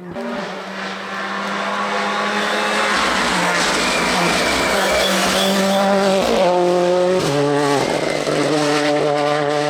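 Ford Fiesta R5 rally car's 1.6-litre turbocharged four-cylinder engine under hard acceleration on a stage. Its pitch holds high, then drops sharply and climbs again several times as it shifts through the gears, with rough noise over the engine note.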